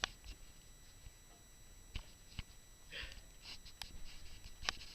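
Quiet room tone with a few faint, scattered clicks and a brief soft rustle about three seconds in.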